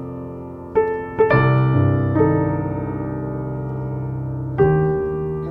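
Slow solo piano music: a few notes and chords struck and left to ring.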